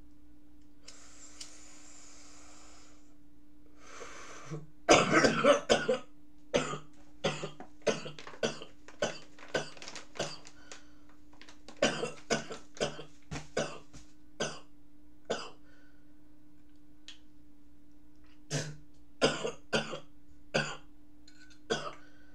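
A man coughing in two fits: a long run of about a dozen short, harsh coughs, a pause, then a shorter run of coughs near the end.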